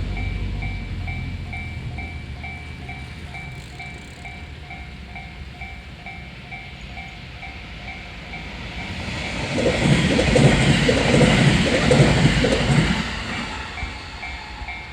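Japanese railroad crossing warning bell ringing its electronic "kan-kan" at about two strokes a second. From about two thirds of the way in, a train passes over the crossing for about four seconds, its wheels and motors drowning the bell before it fades back in.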